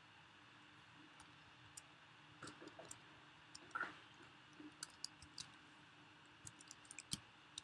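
Faint clicks of computer keyboard keys being typed, coming in irregular short runs over low room hiss.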